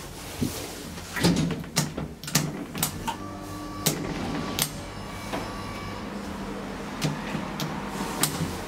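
Schindler hydraulic elevator: a string of sharp clicks and clunks from the car door and its controls as a button is pressed on the car panel, over a steady low hum.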